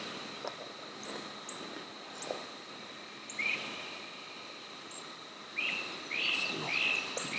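Woodland birdsong over a steady high insect drone: short high chirps repeat throughout, and from about three seconds in a bird gives a series of louder short calls, bunched near the end.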